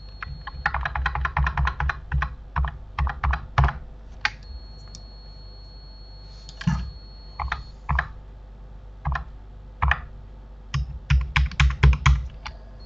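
Computer keyboard keys being struck: a quick run of keystrokes, then scattered single taps with pauses, and another quick flurry near the end. These are hotkey presses while modelling in Blender.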